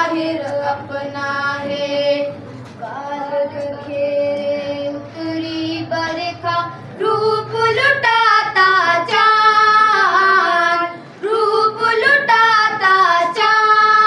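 A group of schoolboys singing a song together, a cappella, in phrases of long held notes with sliding pitch and short breaks between lines.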